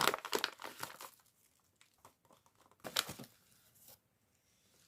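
Plastic packaging crinkling and tearing as a slime is unwrapped, in short crackly bursts during the first second and again about three seconds in.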